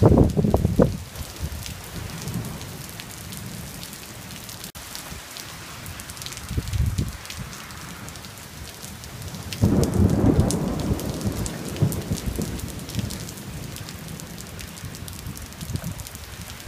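Heavy monsoon downpour hissing steadily on pavement, cars and foliage, dense with droplet patter. Low rumbles swell through it at the start, briefly around seven seconds in, and most strongly about ten seconds in.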